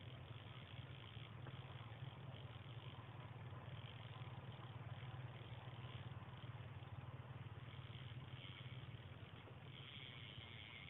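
Faint steady low hum under a soft hiss: quiet outdoor background.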